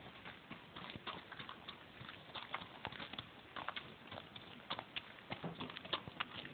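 Tennessee Walking Horse's hoofbeats on gravelly ground as it is led in hand: a quick, uneven run of sharp clip-clops, several a second.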